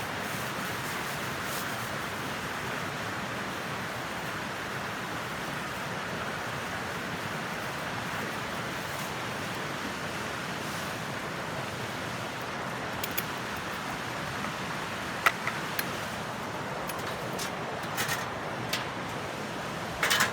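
Wood fire burning in a lidded BBQ stove: a steady hiss with a few sharp crackles and pops in the second half.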